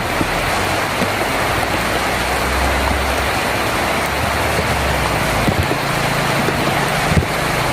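Heavy rain drumming on a tin roof: a dense, steady hiss with scattered louder drop hits, and a low rumble underneath through the middle seconds.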